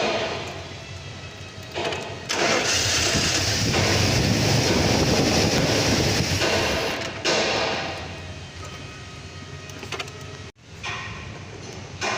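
A Mercedes S500's V8 being cranked on the starter for about five seconds, then quieter; the car has a crank-but-no-start fault that the owner traces to the fuel pump.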